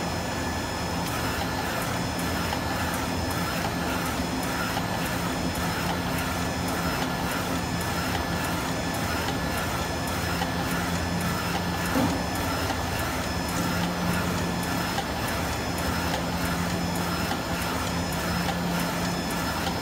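APEX UV6090 flatbed UV printer printing, its carriage with the Epson DX5 print head and UV curing lamp moving back and forth over the work: a steady machine hum with a regular ticking pattern about twice a second.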